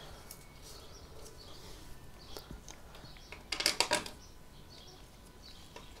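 A short cluster of small metallic clicks and rattles about three and a half seconds in, after a single faint click: screws and a tool being handled as the four screws go back into the washing-machine motor.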